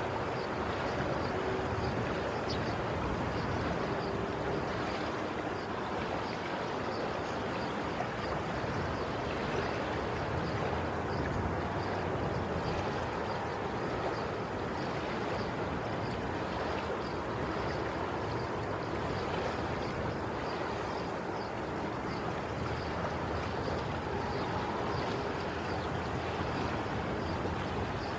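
Sea waves washing on a shore as a steady rush of water with no separate breaking surges, and faint scattered ticks and splashes.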